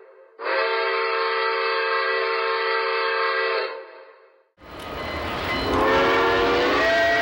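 A train whistle blows one steady multi-note chord for about three seconds, then fades away. After a cut, a moving train rumbles and a second whistle starts low and slides up in pitch near the end.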